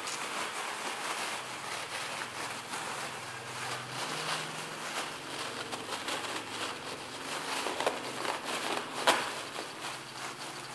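Thin plastic crinkling and rustling as gloved hands handle a plastic bag, in many small crackles, with one sharp click about nine seconds in.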